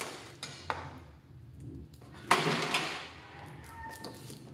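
An old plastic drum head being lifted off a tom shell and handled: a few light clicks, then a brief, louder crinkling scrape a little over two seconds in.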